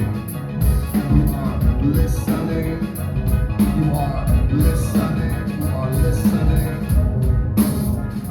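A live rock band playing the closing instrumental bars of a song, with heavy bass and drums keeping a steady beat.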